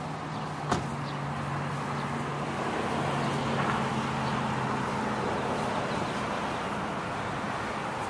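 1957 Ford Thunderbird's 312 cubic-inch Y-block V8 idling steadily, heard close to the exhaust outlets in the rear bumper. A single sharp click comes about a second in.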